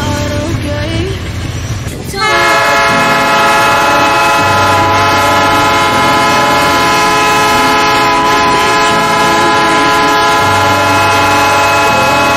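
Diesel freight locomotive's air horn sounding one long, loud, steady chord of several notes, starting suddenly about two seconds in.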